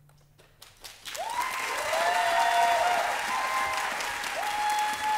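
The last low note of the music fades out, then a few scattered claps grow into full audience applause about a second in, with cheering voices over it.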